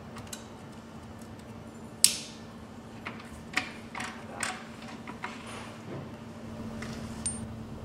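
Sharp metallic clicks and light clinks from fitting the standard retaining clips to the bearings on a gearbox's shafts, the loudest a single ringing snap about two seconds in. A faint steady hum runs underneath.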